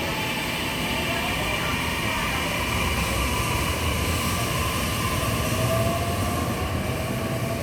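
Tokyu Tamagawa Line electric commuter train running on the rails, a steady rumble and hiss. A faint electric motor whine rises in pitch in the second half.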